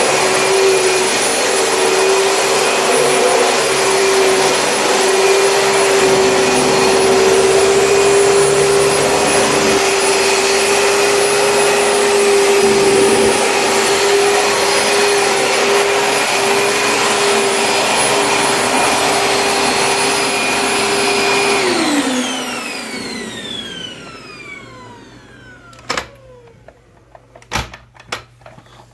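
Dyson DC25 Animal upright vacuum cleaner running steadily with a high motor whine. About 22 seconds in it is switched off, and the whine falls in pitch and fades as the motor spins down. A few sharp clicks follow near the end.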